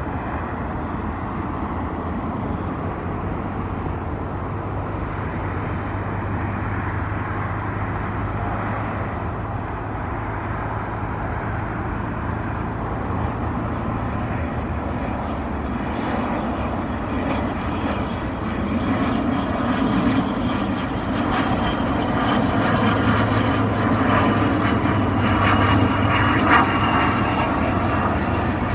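ATR 72-600 turboprop on final approach, its two Pratt & Whitney PW127F engines and propellers making a steady low drone. It grows louder over the last ten seconds or so as the aircraft nears, and a thin high whine joins in about halfway through.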